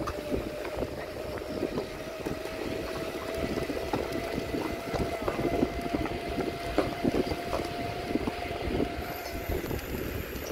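Wind buffeting a phone's microphone while its holder jogs, a dense rumble with irregular jolts from the running. A thin steady tone sits underneath and fades out near the end.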